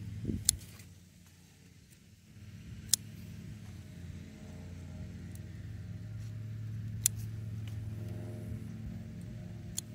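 Scissors snipping Malabar spinach stems: four sharp, short snips spread across a few seconds. Under them runs a steady low mechanical hum like an engine running, which weakens briefly about a second in.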